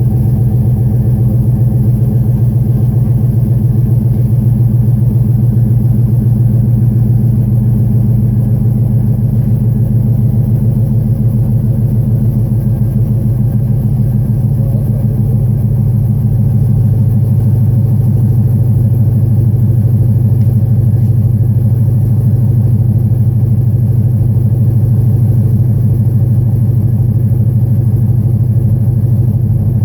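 Chevrolet Silverado SS's LQ9 6.0-litre V8 idling steadily through a custom exhaust with 1 7/8-inch long-tube headers, no catalytic converters and a 14-inch Borla Pro muffler.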